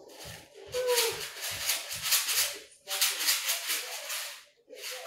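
A box of Rainbow Nerds candy being shaken, the tiny hard candies rattling like a maraca in two long runs of quick shakes.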